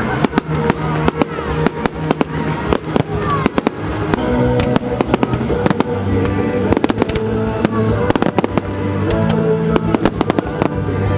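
Fireworks display: a fast, continuous run of sharp bangs and crackles from aerial shells bursting, over music with long held notes.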